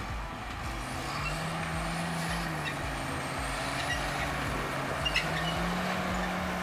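Farm machine engine running steadily over a broad whirring noise, its pitch rising and falling slightly twice. A couple of short clicks come about five seconds in.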